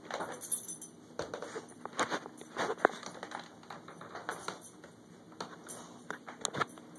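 A dog eating from and nosing at its food bowl: irregular small clicks, taps and rattles of kibble and bowl.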